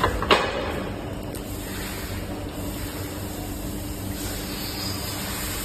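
A single knock about a third of a second in, then steady machinery hum and noise.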